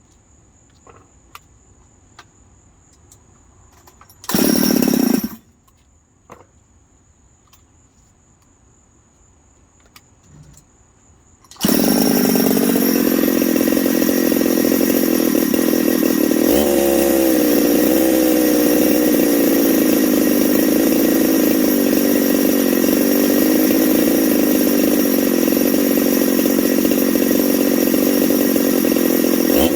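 Husqvarna 372XP two-stroke chainsaw fires for about a second roughly four seconds in, then about twelve seconds in starts and keeps running loudly, its pitch wavering. The saw is newly built and has its top cover off for carburettor tuning.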